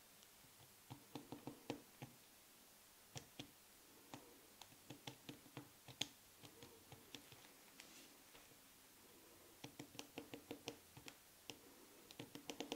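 Faint, quick clicks and taps of a fine-tip pen working on a leather medallion as a pattern is drawn onto it, coming in irregular clusters with short pauses between, over quiet room tone.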